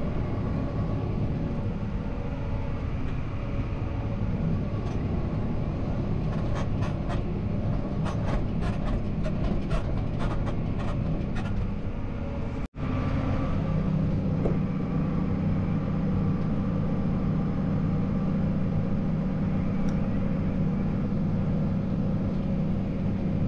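Tractor engine running steadily at raised PTO revs, driving a slurry spreader, heard from inside the cab. A scatter of light ticks comes through midway. The sound drops out for an instant about thirteen seconds in, then carries on with a fuller low hum.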